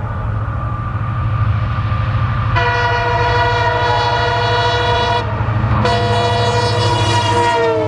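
Diesel locomotive horn sounding two long blasts, each about two and a half seconds, over a steady low engine rumble. The second blast drops in pitch near its end.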